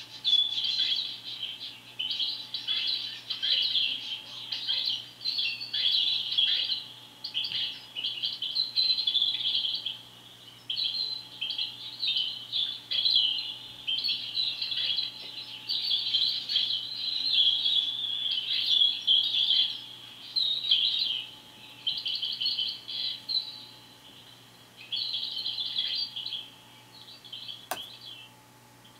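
Small birds chirping and twittering in a dense chatter, in bouts of a second or two with short gaps between them. A single sharp click sounds near the end.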